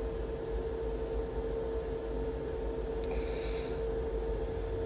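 Steady room hum and hiss with a single steady mid-pitched tone, and a faint, brief scratchy sound about three seconds in.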